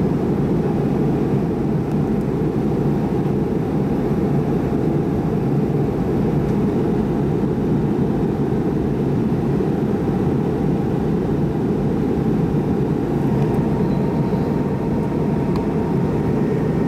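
Steady cabin noise inside an MD-88 airliner on approach: airflow and its rear-mounted Pratt & Whitney JT8D turbofans running, a low, even rumble with a faint steady whine.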